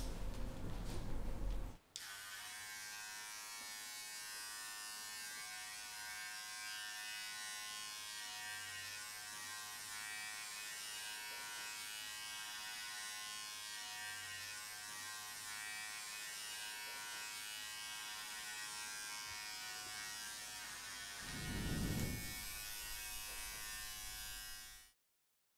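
Cordless hair clipper running with a steady buzz, after a louder, different sound that cuts off about two seconds in. Near the end there is a brief low rumble, and then the buzz stops abruptly.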